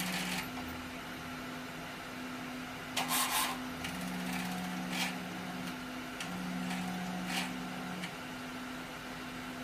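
Large-format printer with an Epson DX5 print head running, a motor whirring on and off in stretches of a second or two over a steady hum, with a few short clicks and rattles.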